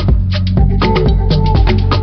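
Background music with a fast, steady drum beat over a bass line.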